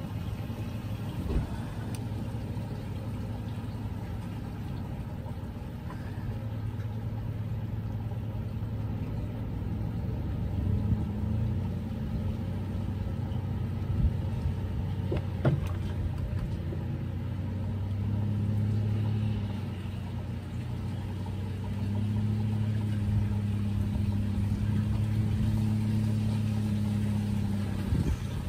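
Boston Whaler Outrage's outboard motor running at low speed, its note swelling and easing as the throttle is worked, and louder near the end. A few short knocks on board.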